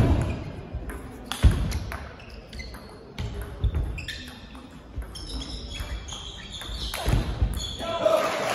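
Table tennis rally echoing in a sports hall: the ball clicking irregularly off the bats and table, with shoes squeaking on the hall floor as the players move. A shout comes near the end as applause starts.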